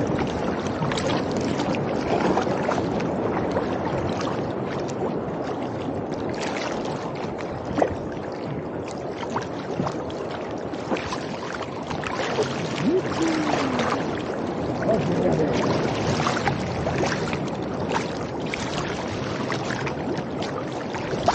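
Choppy sea water rushing and slapping against a kayak's hull, with irregular splashes from the strokes of a Greenland paddle.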